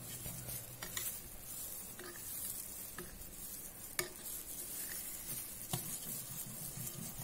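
Wire hand whisk beating a thick yogurt marinade in a bowl: a steady wet stirring with sharp clicks about once a second as the whisk knocks the side of the bowl.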